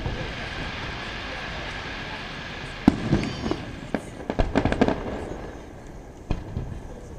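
Aerial firework shells bursting: a hiss over the first few seconds, a sharp bang about three seconds in, a quick cluster of bangs at four to five seconds, and another about six seconds in, each trailing off in a low rumble.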